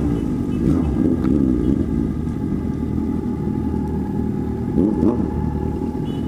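Motorcycle engines running steadily while riding in a group, their note wavering and rising briefly about a second in and again near five seconds.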